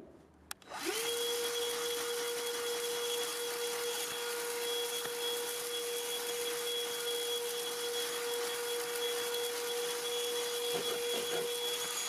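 Black+Decker BDH2000PL 20-volt cordless handheld vacuum switched on with a click, its motor spinning up within a second to a steady whine and running on evenly.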